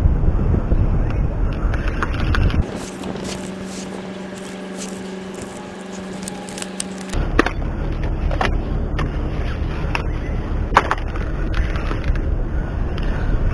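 Wind buffeting the microphone of a body camera, with a few sharp clicks from the rod and reel being handled during the fight with a fish. For about four and a half seconds in the middle the rumble drops out and a steady buzzing tone takes over.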